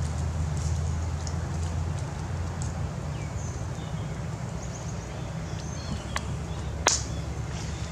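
Outdoor background with a steady low rumble, a few faint high chirps, and two sharp clicks close together near the end, the second one the loudest.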